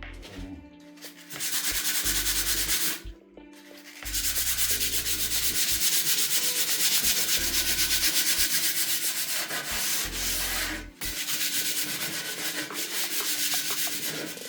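Fast back-and-forth scrubbing on the surface of a cast-iron pot lid being seasoned. There is a short pause about three seconds in and a brief dip near the end, with the strokes otherwise continuous.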